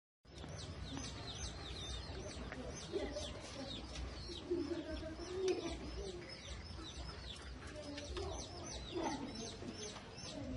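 Many small birds chirping busily and without pause, with doves cooing low underneath.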